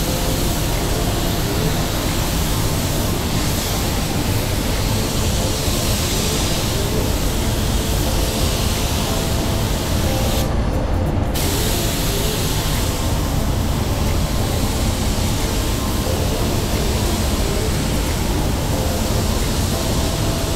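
Iwata WS-400 Series 2 spray gun hissing steadily as it lays down paint, over a steady low rumble. About halfway through the hiss stops for under a second, as when the trigger is let go, then starts again.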